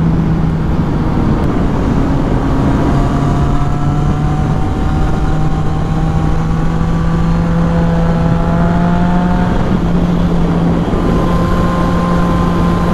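Yamaha FZ-09 inline-three engine running under way, its pitch climbing slowly as it pulls through a gear, dropping once about three-quarters of the way through and climbing again. Heavy wind rumble on the helmet microphone runs under it.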